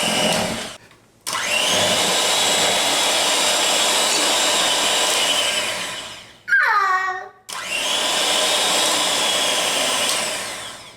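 Electric mixer switched on and off in three runs, each whirring steadily after rising in pitch as it spins up and dropping away as it stops. Between the second and third runs, about six and a half seconds in, there is a brief high vocal sound with a falling pitch.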